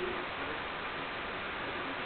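Steady hiss of background noise with no distinct event.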